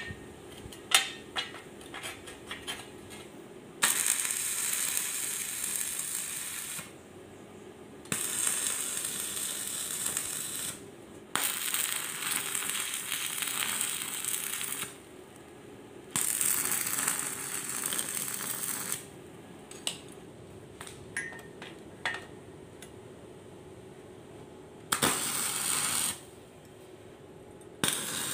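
Stick (arc) welder crackling and hissing as it tack-welds steel angle iron, in about six separate bursts of one to three and a half seconds with short pauses between. A few sharp metallic clicks come in the first few seconds.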